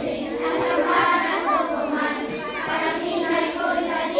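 A group of schoolchildren singing together in unison, many voices at once with some notes held.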